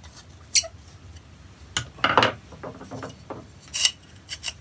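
Rusty steel plane iron, cap iron and screw clinking and scraping as the parts of an infill smoothing plane are worked apart with a screwdriver: a string of sharp metallic clicks, busiest about two seconds in and again near the end.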